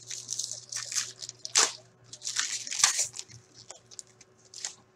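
A hockey card pack's wrapper crinkling and tearing as it is handled and ripped open, in a run of short crackly bursts, with a steady low hum underneath.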